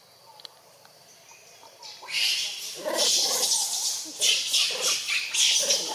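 Macaque calls: a run of short, harsh, noisy calls that start about two seconds in and repeat every half second or so.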